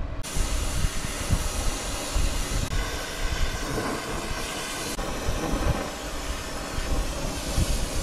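Oxy-acetylene torch with a rosebud tip burning with a steady hiss, which starts suddenly just after the start, while a copper refrigerant line joint is brazed.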